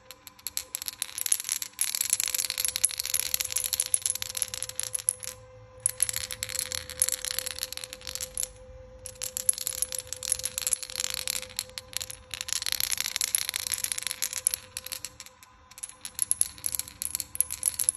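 Rapid metallic clicking rattle in bursts of two to five seconds with short gaps, from a small handheld tester held against the pads of a Cytowave pulsed electromagnetic therapy unit. A steady faint hum runs under it.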